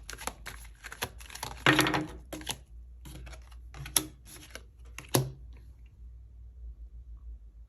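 Tarot cards being handled on a table: a quick run of light clicks and taps, a short noisy burst about two seconds in, then a few sharper taps, stopping a little after five seconds.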